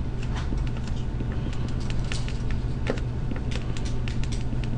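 Felt-tip marker scratching on paper in quick short strokes as words are written, over a steady low hum.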